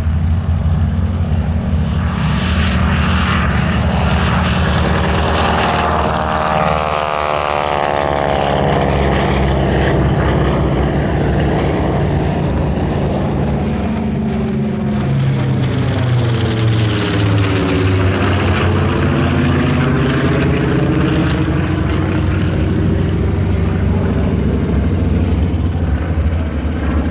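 A North American T-6 Texan's nine-cylinder Pratt & Whitney R-1340 radial engine and propeller at takeoff power, loud and steady, as it lifts off and climbs out. The tone sweeps downward about seven seconds in, then dips and rises again around eighteen seconds in as an aircraft goes by. Near the end a TBM Avenger's radial engine is heard overhead.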